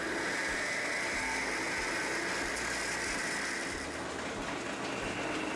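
Metal lathe running while a twist drill in the tailstock bores into a spinning 1018 steel workpiece: a steady machining hiss and hum, with the cutting noise strongest for the first few seconds and easing near the end.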